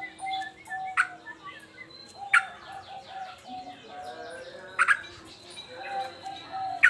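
Male yellow-vented bulbul singing in an agitated state: four loud, sharp notes well apart, with runs of lower, quicker repeated notes between them.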